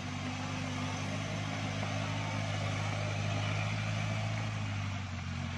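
Engine of a tracked rice-hauling carrier loaded with sacks of rice, running steadily as the carrier moves. It grows louder toward the middle and eases off slightly near the end.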